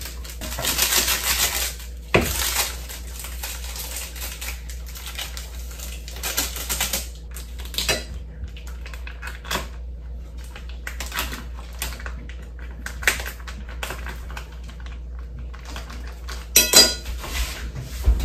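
Kitchen handling noises: a burst of rustling in the first two seconds, then scattered clicks and knocks of dishes, utensils and a food packet on the counter. Near the end comes a loud metallic clatter as the oven door is pulled open.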